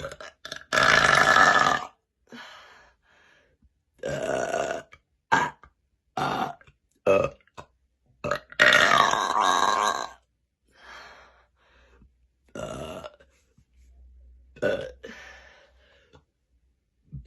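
A woman burping loudly again and again, a string of about eight drawn-out belches with short breaths between. The longest and loudest come about a second in and again just past the middle.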